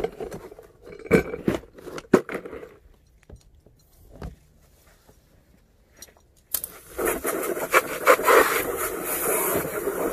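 Hard plastic scraps knocking and scraping together as they are handled. About two-thirds of the way in, a garden hose spray nozzle opens suddenly, and a loud, steady hiss of water sprays onto the pile of plastic.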